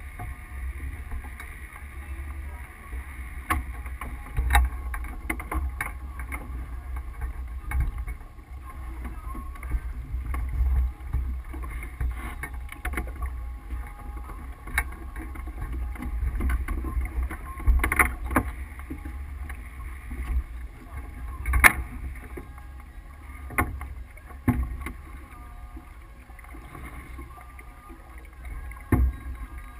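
Wind buffeting the microphone aboard a sailboat under way: a steady low rumble, with scattered sharp knocks and clicks from the boat, a few of them loud.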